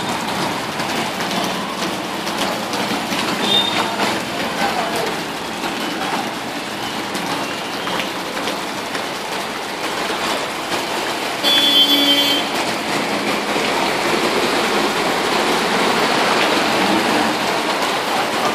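Steady rushing noise of rain and floodwater in a flooded street. A short horn blast sounds about twelve seconds in.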